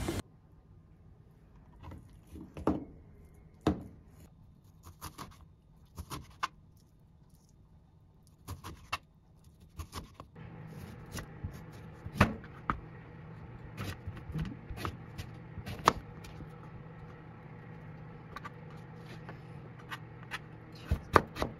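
Kitchen knife cutting sliced pork and then carrot on a plastic cutting board: scattered knocks of the blade hitting the board, coming quicker near the end. A steady low hum comes in about halfway through.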